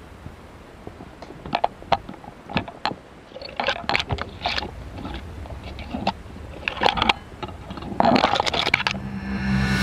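Footsteps crunching on dry fallen leaves and loose stones, with branches and brush scraping past, in irregular bursts that come thickest about four, seven and eight seconds in. Music fades in near the end.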